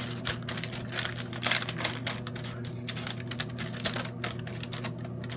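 Scissors scraping and tapping on parchment paper in quick, irregular clicks while gathering loose keef together, over a steady low hum.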